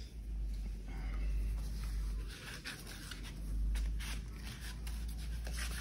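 Rustling and rubbing of a handheld phone against clothing while its holder walks, with a steady low rumble and scattered light clicks.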